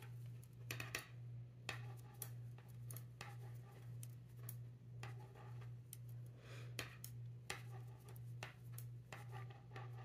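Metal knitting needles clicking and tapping together as stitches are purled, a series of light, irregular clicks over a steady low hum.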